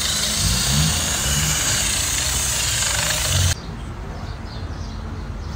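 A loud, steady hiss, most likely from the battery-terminal cleaning that was just announced. It cuts off suddenly about three and a half seconds in, after which birds chirp.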